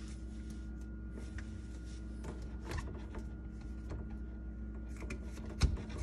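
Light clicks and taps of white plastic sink drain fittings being handled and fitted together, with one sharper knock about five and a half seconds in, over a steady low hum.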